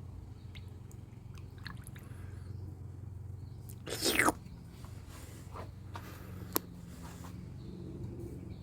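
Scattered light clicks and taps of hand tools on metal, with one louder scrape about four seconds in, over a steady low hum.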